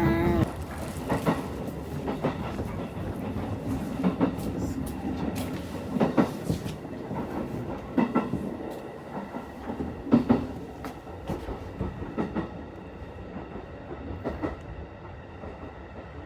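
Train running on rails, a steady rumble with occasional clacks, growing quieter near the end.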